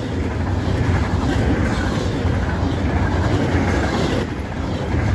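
Union Pacific freight train running past: a steady, dense rumble of the train on the rails, getting louder about a second in.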